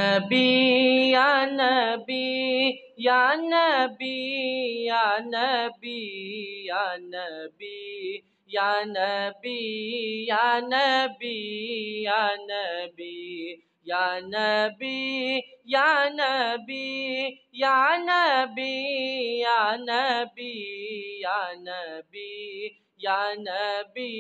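A boy singing a naat solo and unaccompanied, in long melismatic phrases with wavering, ornamented held notes and short gaps between phrases.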